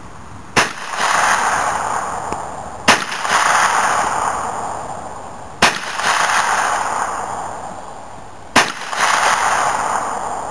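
Hi-Point .40 S&W semi-automatic carbine fired four times, about every two and a half to three seconds. Each sharp shot is followed by a rush of noise that dies away over about two seconds.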